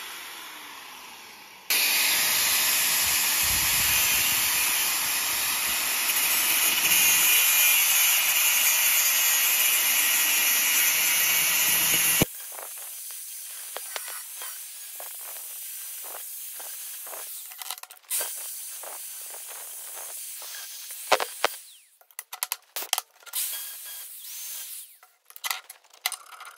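Angle grinder with a cut-off disc cutting through the tack welds at the end of a slot in thick steel plate, so the split clamp will spring open. It winds down at first, starts again about two seconds in and cuts steadily for about ten seconds, then stops abruptly. A quieter grinding hiss follows, then several sharp knocks and clatters near the end.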